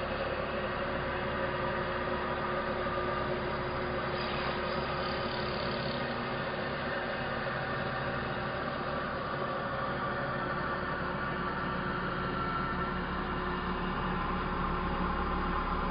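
CNC router spindle motor running with a steady drone while milling a white foam block. It gets a little louder near the end.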